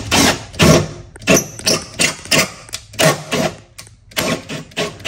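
Cordless drill turning a thread tap into an aluminum tube in short pulses, the motor starting and stopping about twice a second as the tap is eased in and backed out so it doesn't bind and break.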